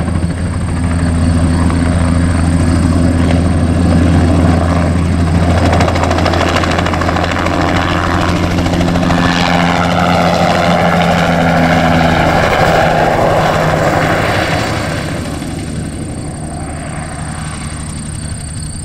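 A crop-dusting helicopter makes a low spraying pass close by. Its main rotor keeps up a steady low beat, and a higher whine bends in pitch around the middle as it goes by. It grows quieter over the last few seconds as it moves away.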